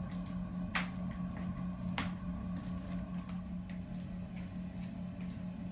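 High-heeled sandals clicking on a tile floor: two sharp steps a little over a second apart, over a steady low hum.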